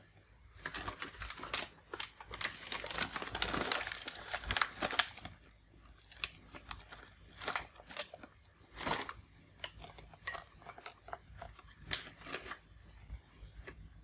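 Crinkly packaging being handled. It crinkles densely for the first few seconds, then gives scattered crackles and clicks.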